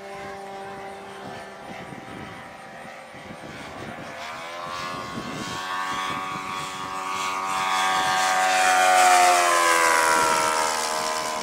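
Propeller engine of a radio-controlled scale Hellcat model airplane, heard at first as a distant steady drone, then growing louder and higher as it comes in on a low pass. It is loudest about nine seconds in, then its pitch drops as it passes by.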